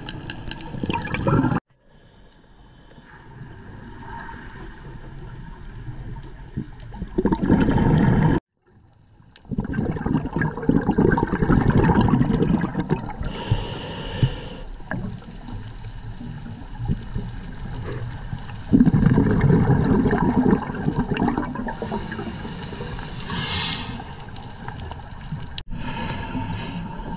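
Underwater recording of scuba breathing: a diver's exhaled bubbles from the regulator rumble and gurgle in loud bursts every few seconds, with a steady water hiss between them. The sound cuts out briefly twice.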